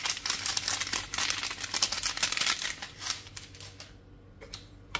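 Granulated Magic Sarap seasoning being shaken from its packet onto raw pork cubes in a non-stick pan: a rapid patter of small ticks and crinkles for about three seconds, thinning out, then a few separate clicks near the end.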